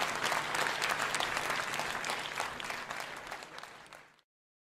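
Concert audience applauding, a dense patter of clapping that fades away and cuts off to silence about four seconds in.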